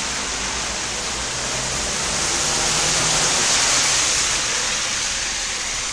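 Hiss and rush of spray as a minibus drives through deep floodwater, swelling about three to four seconds in as it passes close.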